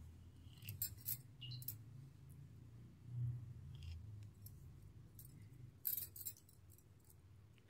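Faint clicks and clinks of a kitchen knife blade against a plate while cutting a wedge of set custard pudding: a short cluster about a second in and another around six seconds, over a low hum of room tone.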